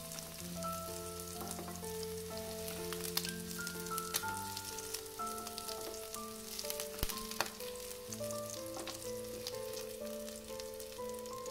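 Hot oil sizzling and crackling in a kadhai as fried prawns are lifted out with a spatula, with a couple of sharper clicks about two-thirds through. Background music with a slow, stepping melody plays over it.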